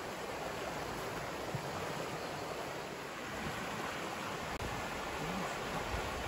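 Fast-flowing water swollen by heavy rain, rushing with a steady, even hiss.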